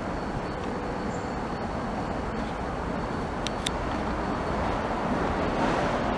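Steady low rumbling outdoor background noise, with two short faint ticks about three and a half seconds in.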